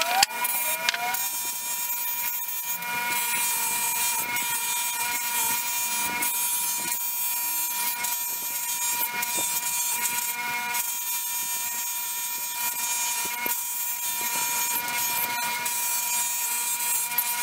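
Electric bench grinder fitted with a buffing wheel running with a steady whine, with the hiss of a metal letterpress quoin key being pressed and worked against the spinning wheel. A rising tone is heard in the first second, and light scrapes and ticks come and go as the key is moved.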